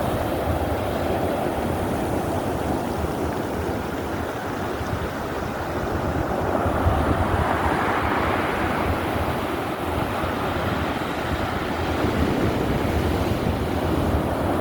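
Storm waves crashing and surging, with a swell that peaks about halfway through, as one wave breaks. Wind buffets the microphone with a low rumble.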